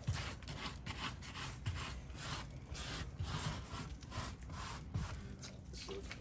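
Rubber grout float scraping grout across a tile backsplash in a quick series of short strokes, a few a second, easing off near the end.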